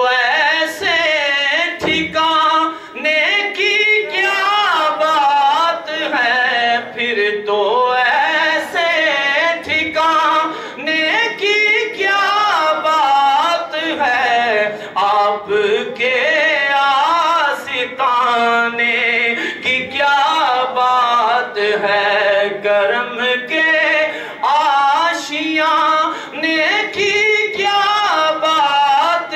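A man singing a devotional naat into a microphone, long wavering, ornamented notes with only brief breaths between phrases.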